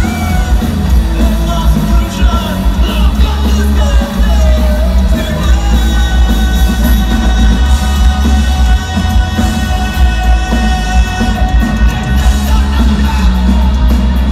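Live punk rock band playing loud through a stage PA: electric guitars, bass and drums, with a singer's voice over them. Held guitar chords ring on through the second half.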